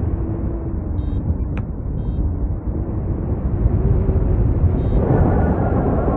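Airflow buffeting the microphone in paraglider flight: a steady low rush of wind noise, with a few short faint high beeps.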